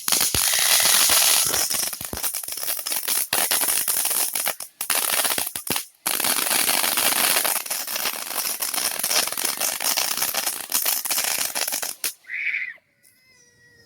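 Firework fountain going off: a loud, steady hiss thick with crackles, with two brief breaks, that stops suddenly about twelve seconds in. A short high tone and a faint pitched sound follow near the end.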